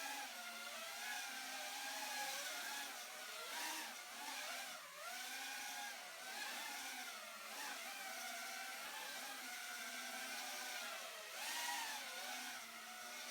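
EMAX Babyhawk brushless micro FPV quadcopter in flight: its 5000 KV motors and three-blade 2.3-inch propellers whine, the pitch rising and falling again and again with the throttle.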